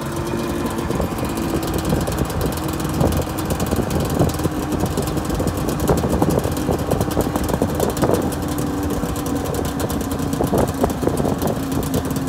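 A 2001 Ski-Doo MXZ 800 snowmobile's two-stroke twin engine running at low speed while the machine rides slowly over snow, a steady drone with irregular sharp clicks and rattles over it.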